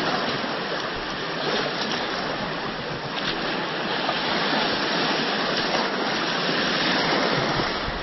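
Shallow seawater swishing and splashing close to the microphone, a steady rushing noise.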